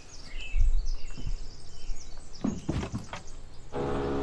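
Small birds chirping over rustling and low thumps as a black bear carcass is dragged through brush. Near the end the sound cuts abruptly to a steady motor hum.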